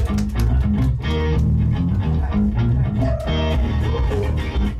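Recorded pop music with a steady beat, guitar and bass.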